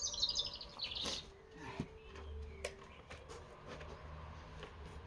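A songbird singing a quick run of high notes that fall in pitch in the first second, with a few faint clicks and knocks afterwards.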